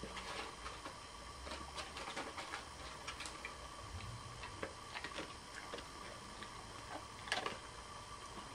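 A dog foraging with its nose at the floor: irregular small clicks and crunches, with the loudest one about seven seconds in, over a faint steady hum.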